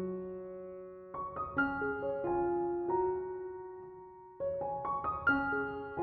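Soft background piano music: short phrases of a few notes, each struck and left to ring and fade, a new phrase starting about a second in and another near the end.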